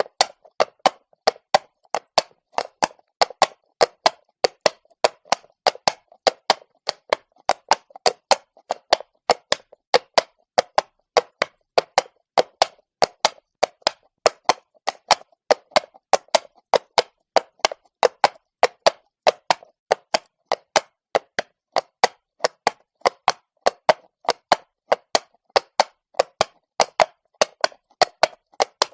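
Horse walking on stone, its hooves clopping in a steady, even rhythm of sharp strikes, a few per second.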